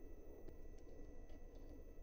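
A few faint light clicks from small parts and tools being handled during hand assembly, over a steady low hum and a faint high whine.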